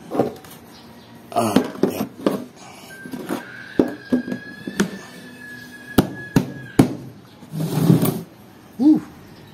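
Sharp clacks and knocks of aluminium tongue-and-groove trim and a painted plywood case being handled and set down, about ten separate strikes. A steady high tone sounds for about four seconds in the middle.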